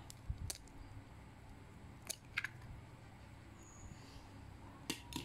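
A few faint clicks and taps from a cracked eggshell being pulled open by hand over a glass bowl of flour. The clicks come in pairs: one about half a second in, two a little after two seconds, and two near the end.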